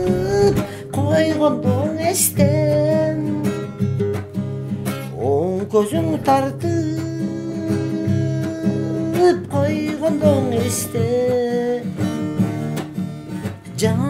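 Background music: a strummed acoustic guitar under a melody of long held notes that slide from one pitch to the next.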